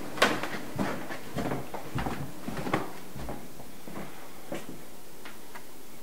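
Footsteps on a hard floor, about six evenly paced steps, then they stop about three and a half seconds in, leaving a steady low hiss.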